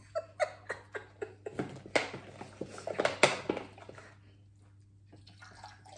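Plastic soda bottle crinkling and clicking as it is handled and its screw cap twisted open, a run of sharp crackles that are loudest about two and three seconds in and die down near the end.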